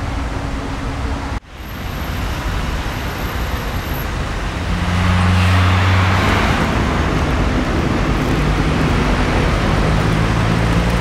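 City road traffic: a steady rumble of engines and tyres. A motor vehicle passes close about five seconds in, the loudest moment, and the sound cuts out for an instant just over a second in.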